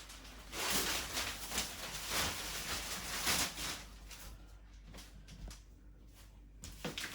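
Rustling and handling of paper leaflets and plastic packaging, with scattered light crinkles and taps, dying down to quiet after about three and a half seconds.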